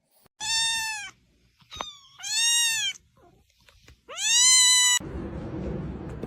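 A cat meowing: three long, high meows, each rising and then falling in pitch, with a shorter falling cry between the first two. About five seconds in, the meows stop and a steady noisy background cuts in.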